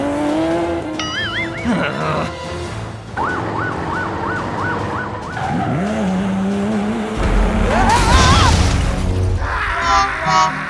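Cartoon-style toy-vehicle sound effects over children's background music: gliding pitched sweeps, a quickly repeating siren-like tone, and a loud crash about seven to eight seconds in.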